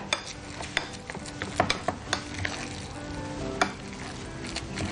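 A spoon stirring and mashing a moist cabbage and ground chana dal mixture in a white bowl, a wet, squelching scrape with scattered clicks of the spoon against the bowl.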